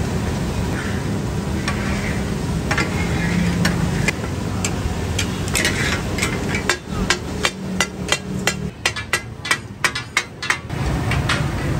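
Goat offal stew sizzling in butter on a large flat iron griddle. From about seven seconds in comes a fast run of metal clangs, about four a second, as steel katakat blades chop the meat against the griddle.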